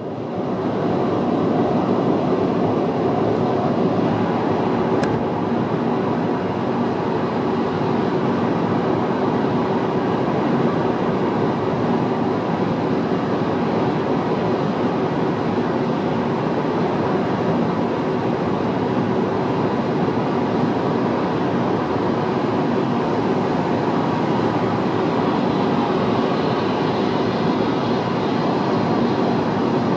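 Car travelling at motorway speed: a steady rush of tyre and wind noise with the engine underneath.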